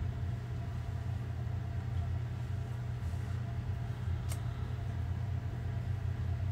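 Electric sewing machine running steadily, stitching the sleeve seam round, with a single sharp click about four seconds in.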